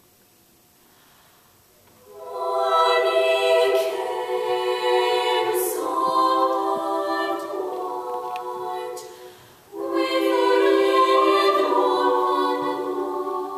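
Girls' choir singing: after about two seconds of quiet the voices come in together, stop briefly about seven seconds later, then come back in.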